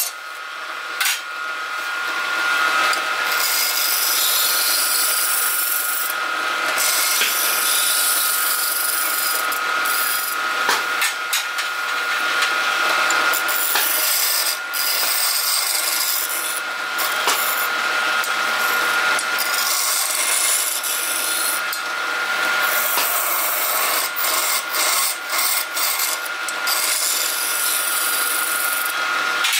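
Wood lathe running with a steady whine while a hand-held steel chisel scrapes out the inside of a spinning wooden vase's neck. The cut makes a continuous rough scraping hiss that breaks off briefly now and then as the tool is eased off and reapplied.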